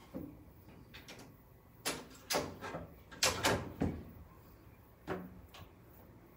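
Vintage foot-operated spot setter clunking as it presses 3/8-inch spots into leather: a handful of sharp metallic clunks and clicks at irregular spacing, the loudest group about two to four seconds in.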